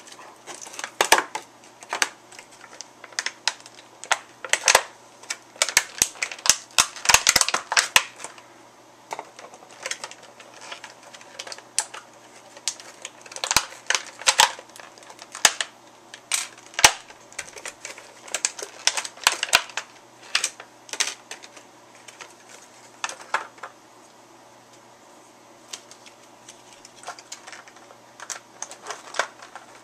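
Stiff clear plastic packaging crackling and clicking in the hands in irregular bursts as a starship model is pried out of its tight-fitting insert, with a quieter stretch about two-thirds of the way through.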